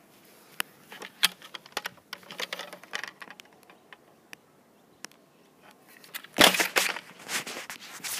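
Footsteps and crackling in dry grass and leaves, with scattered clicks from handling a plastic pump-action water gun. A few loud rushing bursts of noise come near the end.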